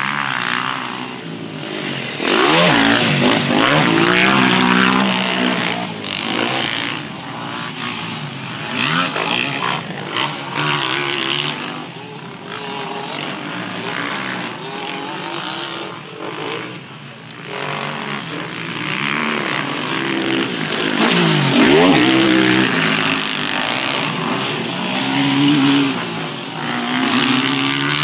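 Motocross bikes running laps on a dirt track, engines revving up and falling back over and over as the riders work the throttle. One bike passes close by about three seconds in, and another about twenty-two seconds in.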